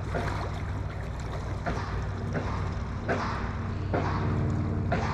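Boat motor running on the water: a steady low hum, with short rushes of noise about once a second.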